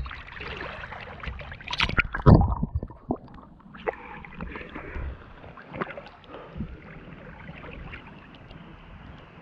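River water splashing and sloshing against a GoPro action camera held at the surface by a swimmer, with scattered small slaps and one loud, deep splash a little after two seconds in.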